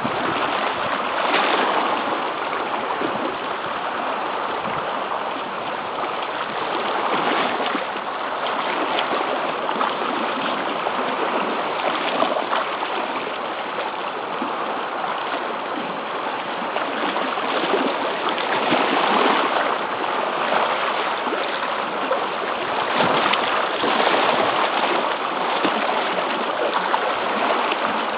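Sea surf washing against a rocky shore, a steady rush that swells every few seconds as each wave comes in.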